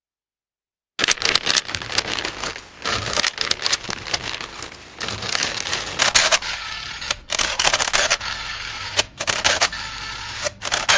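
Camera mechanism clicking and clattering, starting about a second in: a dense, irregular run of mechanical clicks and rattles with a few louder snaps.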